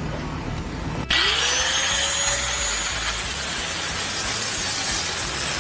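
A power tool starting up about a second in: a motor tone rising in pitch as it spins up and then holding steady, under a loud, steady hiss.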